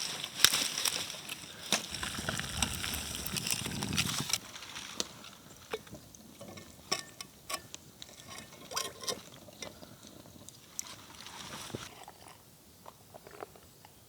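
Liquid sloshing and pouring for about the first four seconds, then quieter scattered light clicks and taps.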